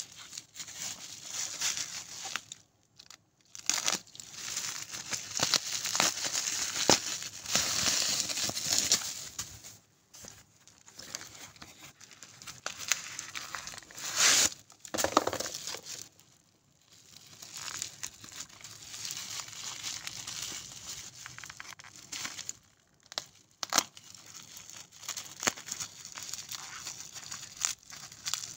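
Cardboard packaging being handled and torn open, crinkling and rustling in spells broken by a few short pauses.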